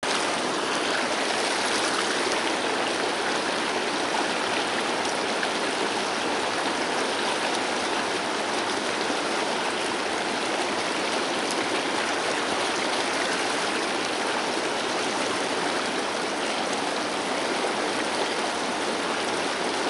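Fast mountain river running over rocks and rapids: a steady, even wash of running water.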